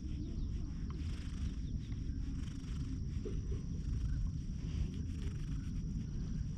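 Grey-and-white bicolour cat purring close up, a steady low rumble, while it is scratched under the chin: a content cat.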